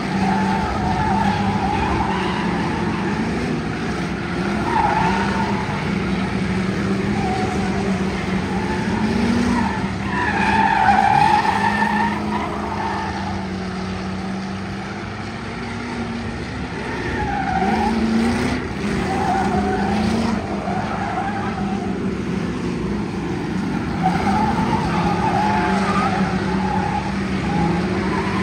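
Ford Crown Victoria race cars' V8 engines running hard around a paved oval, pitch rising and falling as they pass, with tires squealing several times through the turn.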